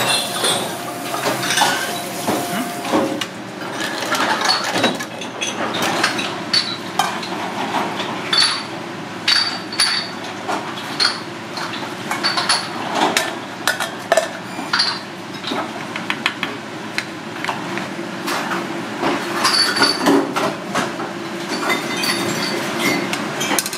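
Shells of abalone, clams, scallops, whelks and crabs clicking and clinking against each other and against a stainless steel pot as the seafood is handled, a quick irregular run of knocks. A tap runs in the first few seconds.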